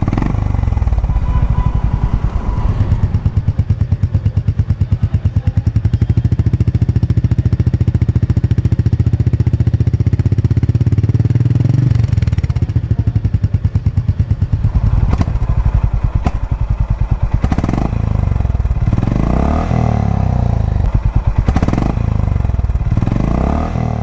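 Air-cooled single-cylinder 350 cc motorcycle engine idling through its exhaust with an even, steady beat, then revved several times in the second half, each blip rising and falling back to idle.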